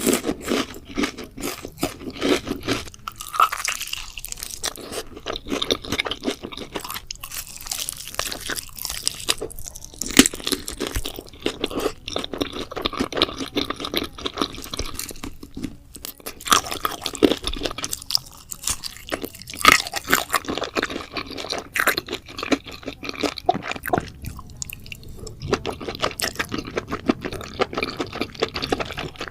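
Close-miked chewing and crunching of spicy pork head: a dense run of small crackles and clicks, with a few short pauses between mouthfuls.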